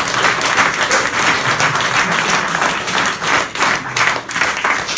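A small audience applauding: many hands clapping densely and steadily.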